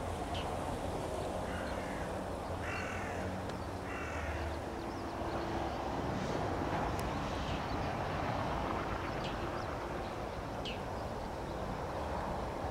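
A bird cawing three times, between about one and a half and four seconds in, over the steady distant jet noise of a landing Airbus A330.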